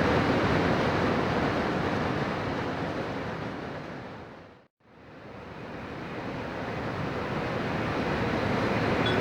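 Steady rushing running noise of an N700A Shinkansen train at speed, heard inside the passenger car. About halfway through it fades smoothly to silence and then fades back up.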